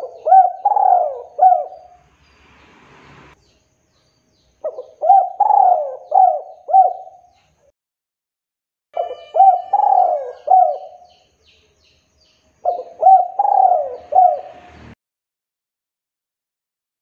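Male spotted dove in full song: four cooing phrases a few seconds apart, each a quick run of three or four notes that fall away in pitch.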